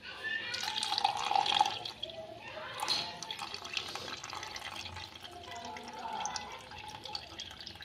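Water trickling in a thin stream from a tilted steel bowl into a plastic jug: the rinse water being drained off freshly washed sugar.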